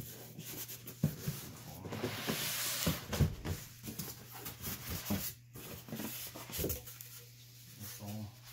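Large cardboard shipping box being handled and its flaps folded open: cardboard rubbing and scraping, with a few light knocks.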